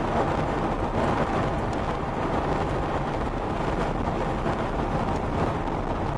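Steady road and tyre noise of a moving car, heard from inside the cabin.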